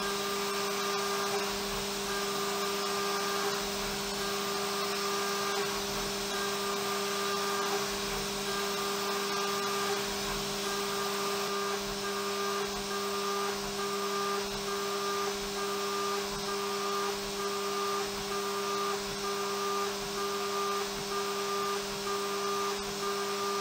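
Haas CNC mill semi-finishing a hardened-steel knife blade bevel with a ball end mill: a steady spindle whine under the hiss of the air blast cooling the cut. A fainter higher tone comes and goes in short, regular pulses, a little more than once a second.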